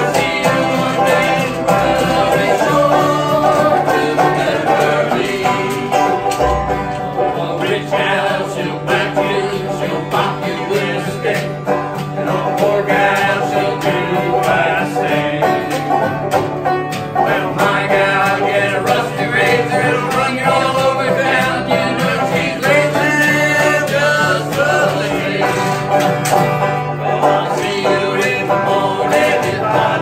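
Small amateur string band playing a country song live: strummed acoustic guitar and banjo with several men singing together.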